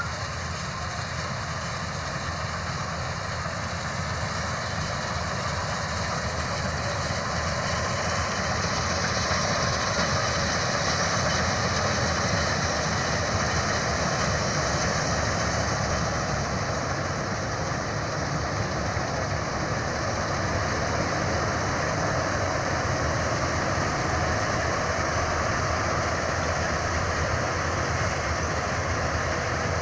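A combine harvester running steadily while cutting wheat, its engine and machinery making a continuous noise that grows a little louder over the first several seconds, then holds steady.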